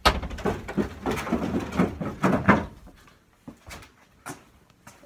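Muffled rustling and bumping of a phone carried in the hand while walking, fabric rubbing over the microphone. It dies down about three seconds in to a few faint knocks.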